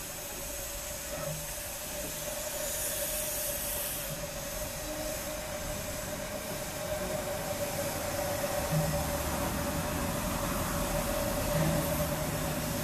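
Steam-hauled train of passenger coaches at a platform, with a steady hiss of steam and a constant single high tone. A burst of hiss about three seconds in, and a low rumble that grows in the second half.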